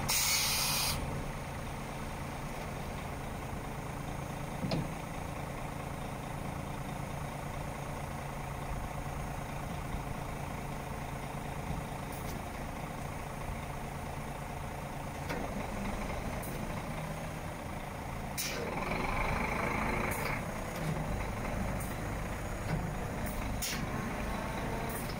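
IVECO Stralis 320 truck's diesel engine idling steadily, with a short air hiss at the start and a longer hiss about two-thirds of the way through.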